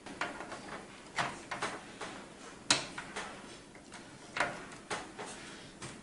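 SSD in its drive tray being pushed and fitted into a PC case's drive bay: a string of sharp clicks and knocks, hard plastic and metal against each other, the loudest a little before halfway.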